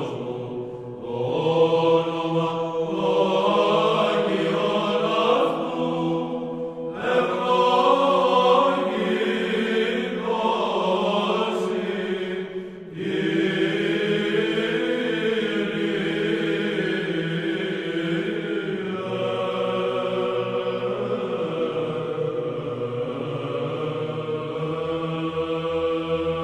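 Chant music: voices singing a slow melodic line over a low held note, with brief breaks about 1, 7 and 13 seconds in.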